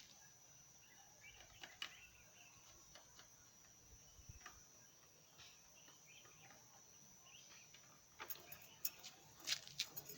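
Near silence with faint room tone; about eight seconds in, a quick run of light clicks and taps starts.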